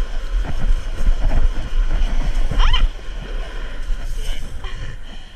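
Wind buffeting the microphone as a steady low rumble over the noise of surf breaking on the beach, with a short rising cry about two and a half seconds in.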